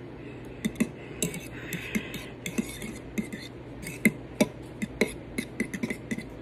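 A utensil clinking and scraping against a mixing bowl while the quiche filling is stirred, with irregular clicks several times a second.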